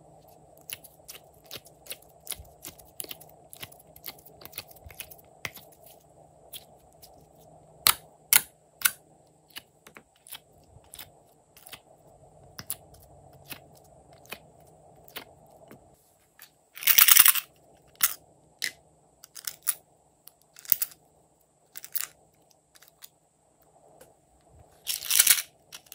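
Plastic slime palette and containers being handled: a quick run of light clicks and taps, then sparser clicks with two louder, crackly bursts in the second half.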